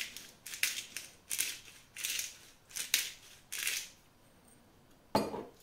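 Hand-twisted pepper mill grinding in five short rasping turns, then a sharp knock about five seconds in.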